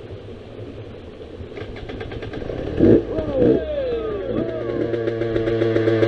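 Trail dirt bike engine growing steadily louder, with a few quick revs up and down from about three seconds in before it settles to a steadier pitch.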